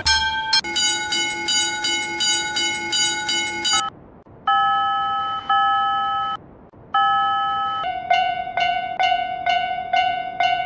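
Japanese railroad crossing alarm bell (kan-kan) ringing in a rapid even rhythm, about three strikes a second. Near the middle it gives way to a few long held tones, then rings again at a slightly lower pitch.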